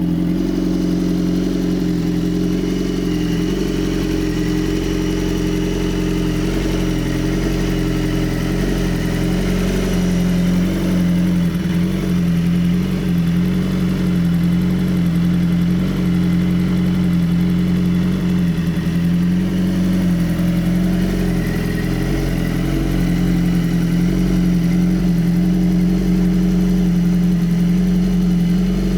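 BMW S 1000 RR HP4's 999 cc inline-four engine idling steadily while warming up after a cold start.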